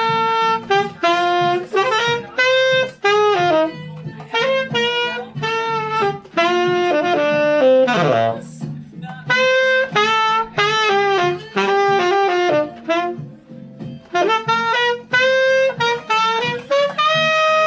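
Tenor saxophone playing a jazz-funk line of short, separate notes with a few slides in pitch, over a karaoke backing track with a steady low bass.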